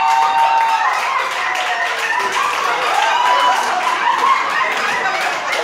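Audience clapping, with many voices calling out over it.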